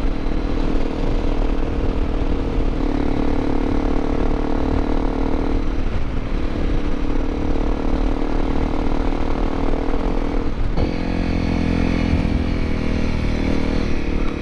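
Honda CRF250L Rally's 250 cc single-cylinder engine running steadily under way on a ride, its note changing pitch a few times, with a brief dip about six seconds in and a clear change about eleven seconds in.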